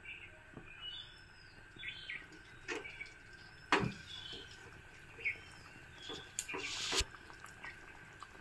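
Birds chirping in short, repeated calls, faint over the soft bubbling of the fish curry simmering in the pan. A single sharp knock comes about four seconds in, and a short hiss a little before seven seconds.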